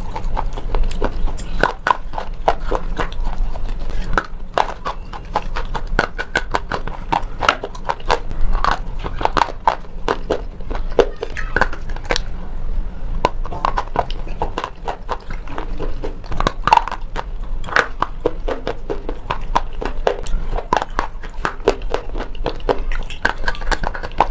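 Slate pencil being bitten and chewed close to the microphone: a rapid, irregular run of sharp crunches and snaps, several a second, with mouth sounds between them.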